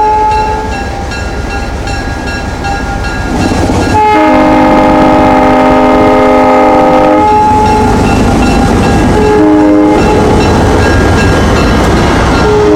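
Diesel locomotive's multi-chime air horn sounding several long blasts and a short one, the usual crossing signal. Under the horn, the low rumble of the passing train grows louder about four seconds in.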